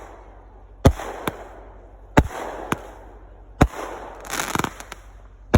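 Fireworks going off close by: a series of sharp bangs about every second, with a stretch of crackling about four seconds in.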